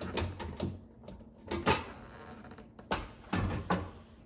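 Steel front cover of a breaker panel being handled and taken off: a run of knocks and clicks, the loudest about a second and a half in.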